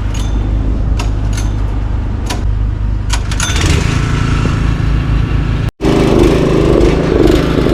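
Four-wheel-drive pickup's engine running under load in four-low on a hill climb, with several sharp knocks and rattles in the first half. The engine note rises about halfway through, and after a momentary break in the sound it runs louder.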